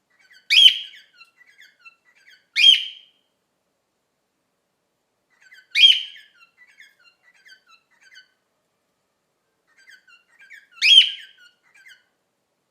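Cockatiel giving its flock call: four loud, short, high contact calls spaced a few seconds apart, with soft chirps between them.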